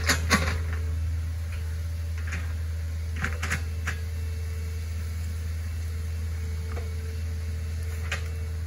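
Hitachi Zaxis 48U mini excavator's diesel engine running steadily as it digs out a ditch, with a few sharp knocks from the bucket and arm, the loudest just after the start.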